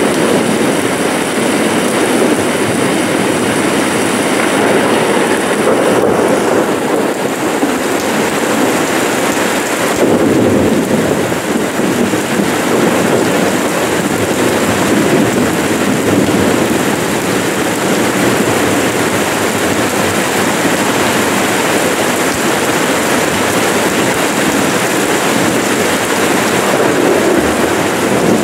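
Rain falling steadily and loudly onto wet paving, potted plants and garden foliage, an even hiss with slight swells in intensity.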